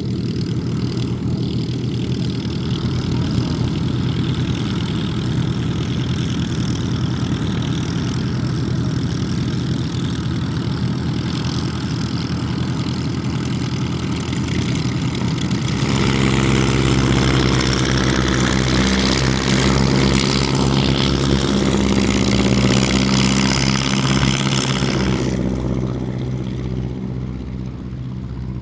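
Klemm 35D light aircraft's piston engine and propeller running steadily. About halfway through the engine note steps up louder with power applied, then eases back near the end and the sound starts to fade.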